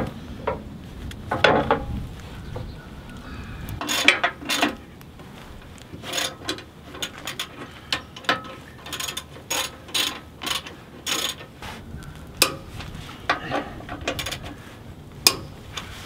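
Hand socket ratchet clicking in short, uneven strokes, tightening the winch's mounting bolts up through the bottom of the winch plate.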